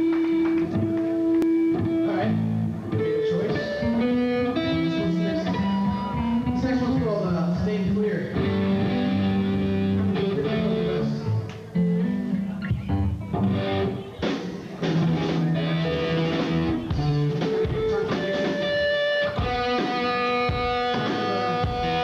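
Live rock band playing a song: electric guitar and bass guitar over drums.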